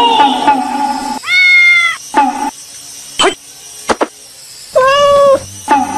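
A domestic cat meowing twice, two drawn-out meows about three seconds apart, with a couple of sharp clicks between them. Plucked music plays for about the first second, then stops.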